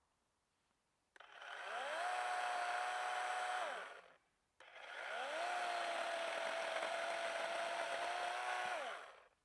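Chainsaw run twice: each time the motor spins up to a steady whine, holds it, then winds down. The first run starts about a second in and lasts about three seconds; after a short pause the second runs for about four and a half seconds.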